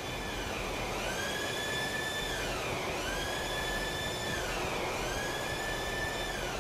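Ship's engine-room machinery running: a steady mechanical noise with a high whine that rises, holds and falls about every two seconds.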